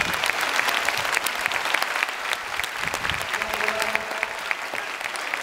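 Crowd applauding, with many sharp individual hand claps close by standing out over the massed clapping.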